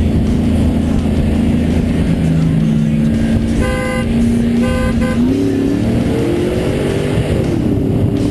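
Two V8 pickups, a 2012 Chevy Silverado 5.3L on open exhaust and a Toyota Tundra 5.7L on a Borla cat-back, running side by side. A horn honks twice in the middle, then the engines go to full throttle, their pitch rising and dropping back briefly near the end.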